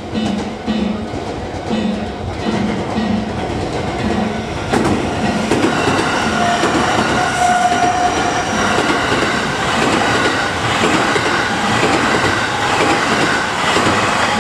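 A JR Hanwa Line electric train passing over the level crossing, its wheels clacking over the rail joints. It grows louder about five seconds in and keeps running to the end.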